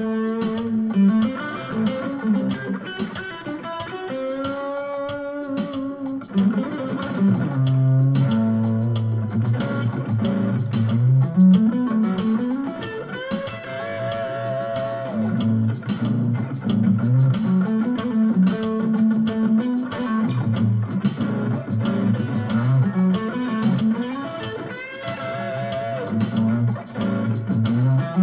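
Electric guitar with ceramic pickups, played through a Roland Cube-10 amp on its Classic Stack crunch setting: single-note lead lines, with some long notes held and wavering with vibrato. Underneath runs an Alesis drum machine on a Latin-funk groove with a steady, even beat.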